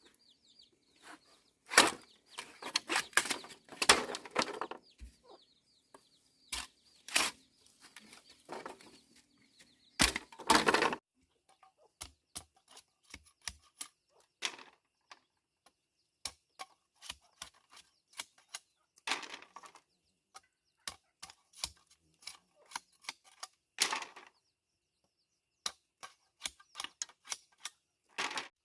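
Irregular short knocks and clicks, some louder clattering ones about 2, 4 and 10 seconds in and sparser light taps later, with faint high chirping during the first few seconds.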